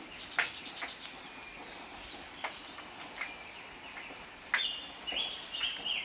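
Small songbirds calling in trees: scattered sharp chips and thin high whistles, with a run of short, level whistles near the end.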